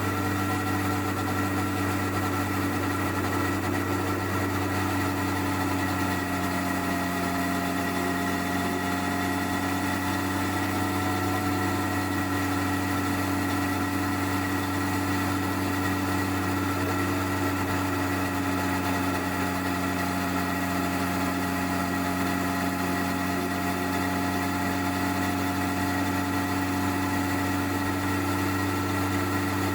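Honda CBR1100XX Blackbird's inline-four engine on its stock exhaust, running at steady, unchanging revs, heard from under the rear seat.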